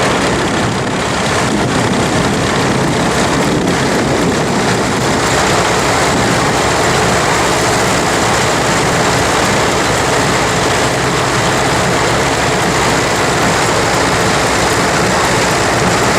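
Machinery running steadily, a loud continuous mechanical drone with a dense, noisy texture and no breaks.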